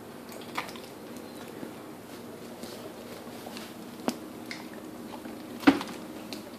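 Dog licking peanut butter off its nose: a few scattered wet smacks and clicks, the sharpest about five and a half seconds in, over a faint steady hum.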